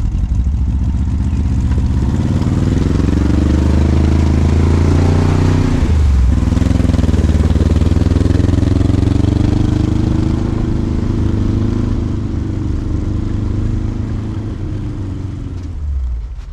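Air-cooled VW flat-four engine in a tracked snowcat driving off and past: the revs climb, dip sharply about six seconds in and climb again, then hold steady and fade near the end as it moves away.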